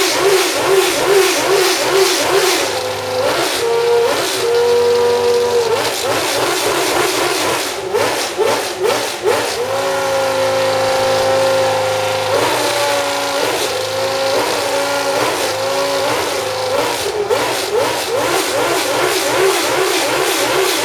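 McLaren Honda MP4/5's 3.5-litre Honda V10 Formula 1 engine being revved. It pulses with quick throttle blips about twice a second at the start and end, and between them holds higher, steady revs several times, shifting up and down in pitch.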